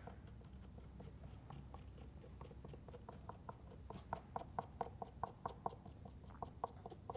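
Black marker tip scratching short strokes onto a plaster-bandage puppet head: a faint run of quick, scratchy ticks, several a second, coming thickest in the second half.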